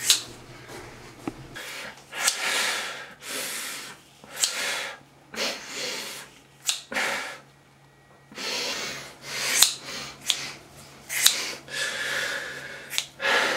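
Scissors cutting through long hair at close range: a run of irregular crunching snips, some ending in a sharp click of the blades closing, with short pauses between them.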